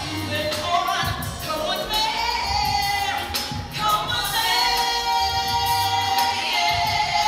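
A woman singing long held, wavering notes into a microphone over backing music with a low bass line.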